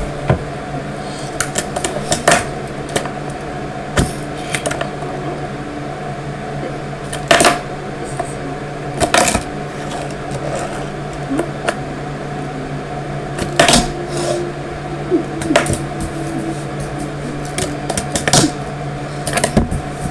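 A fingerboard clacking on a tabletop: sharp clicks and knocks as the tail pops against the table and the wheels land, in scattered clusters a few seconds apart. A steady low hum runs underneath.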